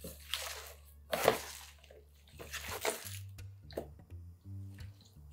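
Gloved hands grabbing and packing green onions coated in wet red chili seasoning, making wet rustling and squelching handling noises in several separate grabs, over soft background music.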